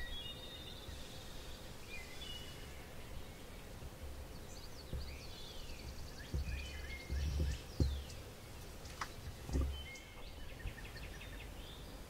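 Small songbirds chirping and trilling in short high calls over a steady outdoor background, with several low rumbles on the microphone, the loudest about two-thirds of the way through.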